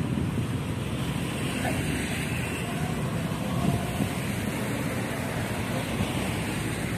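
Steady noise of road traffic on a busy city road, with wind rumbling on the microphone.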